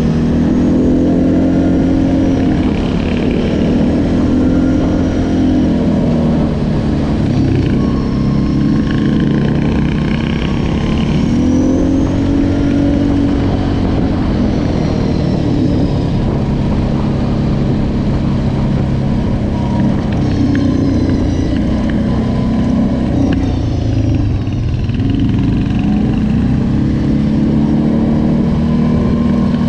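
Quad bike (ATV) engine heard from the rider's seat, running continuously under way. Its pitch rises and falls over several seconds at a time as the throttle is opened and eased.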